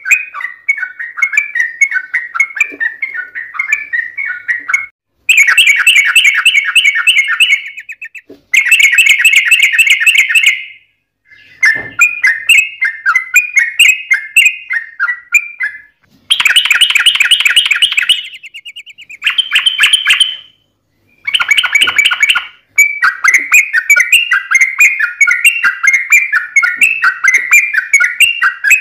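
Yellow-vented bulbuls (trucukan) singing long, rapid, bubbling chattering phrases in several loud stretches, each ending in an abrupt cut to silence.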